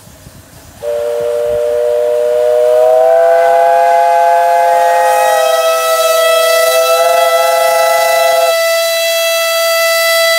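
Steam whistles of two 15-inch-gauge steam locomotives double-heading, blown together as one long, loud chord of several notes, with a higher note sliding up about two seconds in. Near the end the lower notes stop and a single whistle holds on alone for about two more seconds.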